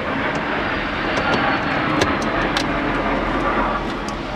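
Steady background noise of a busy industrial area, with a few light clicks of a screwdriver working out the glove box screws about halfway through.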